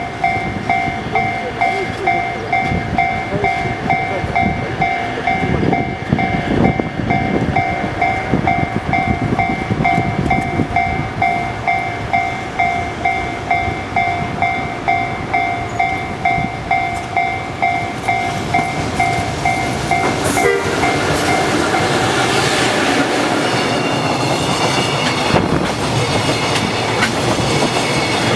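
A Japanese level-crossing warning bell dinging in a steady, rapid repeat over a passing freight train hauled by an EF66 electric locomotive, its wheels clattering over the rail joints. The bell stops about two-thirds of the way through, and the wagons' rumble and clatter then grow louder.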